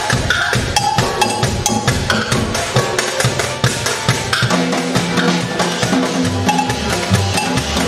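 Acoustic skiffle band playing: a busy clicking rhythm of washboard and drum over a plucked double bass. The low bass notes grow stronger about halfway through.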